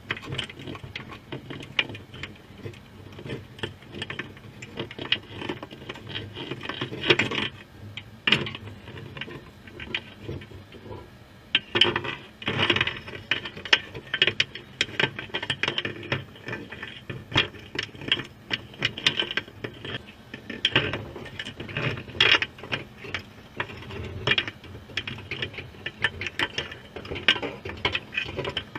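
Dense, irregular underwater clicking and crackling picked up inside a submerged wire crab trap, thinning out briefly about ten seconds in.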